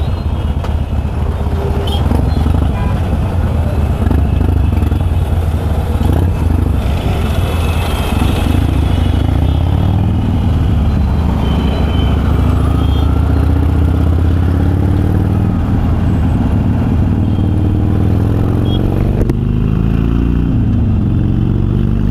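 Harley-Davidson Sportster's V-twin breathing through Vance & Hines Twin Slash 3-inch slip-on mufflers with quiet baffles, accelerating hard. Its pitch climbs and drops back several times in the second half as it goes up through the gears.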